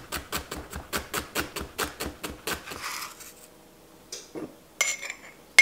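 Chef's knife mincing a shallot on a plastic cutting board: rapid, even taps at about five a second, stopping about three seconds in. Near the end come a few light knocks and a sharp clink of glass that rings briefly.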